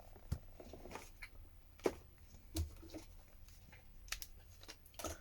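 A few light, scattered clicks and taps as small phone parts and tools are handled on the open handset.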